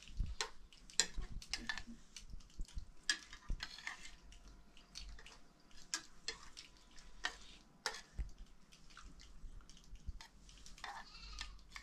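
A metal spoon clinking and scraping against a plate as food is scooped up and eaten: a string of light, sharp clicks at an irregular pace.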